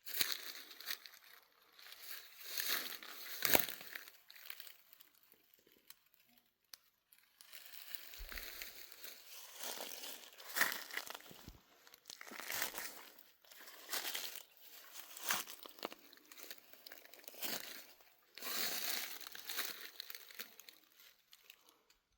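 Irregular rustling and crinkling, coming in short uneven bursts every second or two, with a sharper knock about three and a half seconds in.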